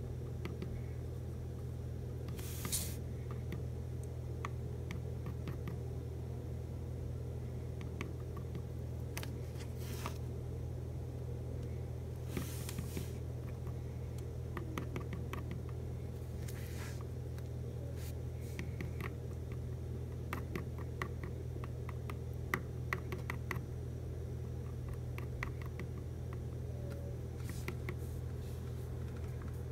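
Quiet handling sounds as a crayon stick is pressed against the hot nozzle of a glue gun to melt wax into a dent in the floor: scattered faint clicks, scrapes and short rustles over a steady low background hum.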